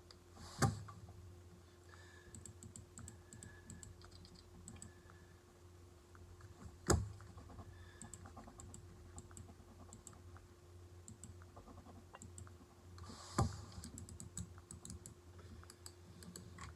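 Computer mouse buttons clicking: scattered light clicks, with three louder sharp clicks about six seconds apart, over a steady low hum.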